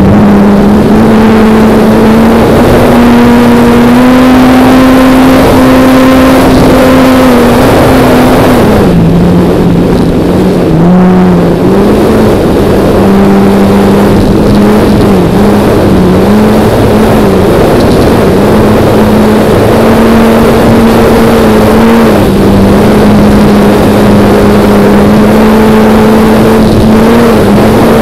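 Wot4 Foam-E electric model plane's motor and two-blade propeller running under power through takeoff and climb, a loud steady drone picked up close by the camera on the wing, with rushing air noise. The drone's pitch drops about nine seconds in, wavers for several seconds, then holds steady again.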